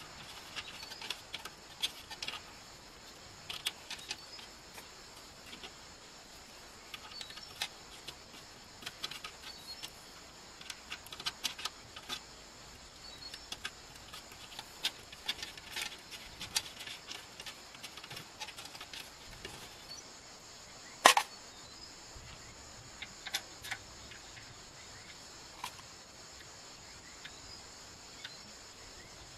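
Scattered small metallic clicks and taps as a hex nut and washer are fitted by hand onto a bolt in the cassava slicer's red steel frame, with one sharp, much louder knock about two-thirds of the way in. A steady high cricket chirr runs underneath.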